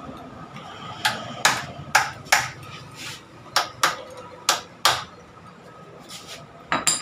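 Hammer tapping a steel rod held against a motorcycle steering-head bearing nut, about eight sharp metal-on-metal taps, loosely in pairs, to turn and set the nut by hand without a spanner.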